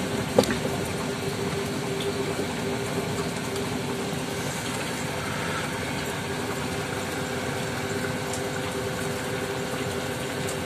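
Heavy rain falling steadily on a corrugated roof and on the river, with one brief knock about half a second in.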